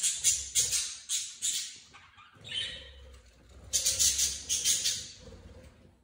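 Budgerigars giving harsh, raspy squawks: a quick run of several calls, one shorter call, then another quick run.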